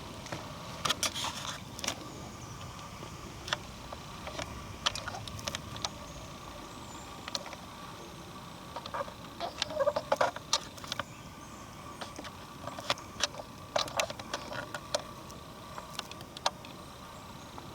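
Footsteps crunching on a dry dirt and gravel trail: irregular sharp crackles and clicks, thickest about ten seconds in, over a low background rush.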